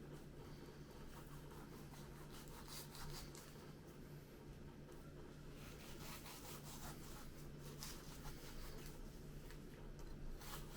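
Faint scraping and rubbing of a knife cutting down the breastbone of a partly frozen raw chicken, over a steady low hum.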